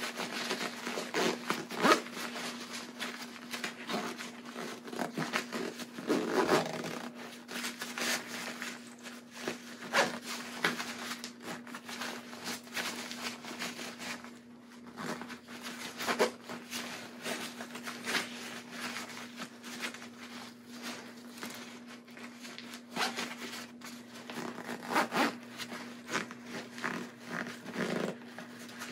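Zipper of an overstuffed fabric compression packing cube being pulled closed in many short, uneven strokes, with scraping and rustling as the packed cloth cube is handled and squeezed.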